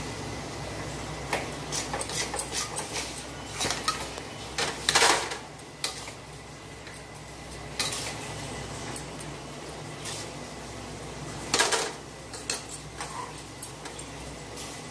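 Metal spatula scraping and clinking against a metal kadai while stirring besan (gram flour) roasting in ghee on low heat, in irregular strokes with two louder scrapes about five seconds in and near twelve seconds. A steady low hum runs underneath.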